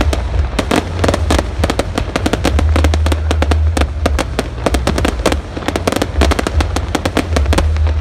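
Fireworks display going off in rapid, irregular succession: many sharp bangs and crackles close together over a continuous low rumble.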